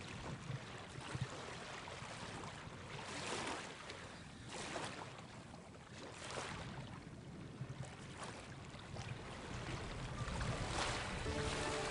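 Harbour water sloshing and lapping at the surface, with wind on the microphone; soft surges of splashing come and go every second or two. Music begins near the end.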